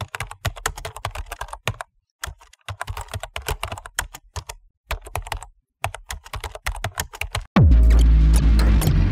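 Fast typing on a computer keyboard: rapid key clicks in bursts, broken by short pauses. About seven and a half seconds in, loud music starts with a deep falling bass tone and carries on.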